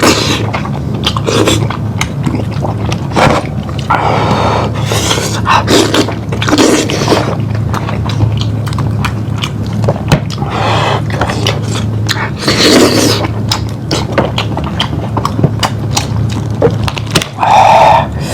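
Close-miked eating: chewing and biting into lamb, with many small wet mouth clicks and several louder, longer wet bursts.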